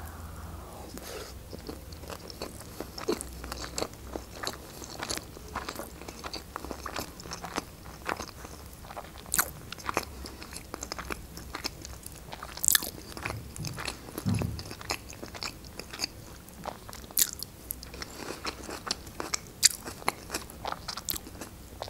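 A person chewing a mouthful of Philadelphia sushi roll: a long run of small, irregular mouth clicks and smacks.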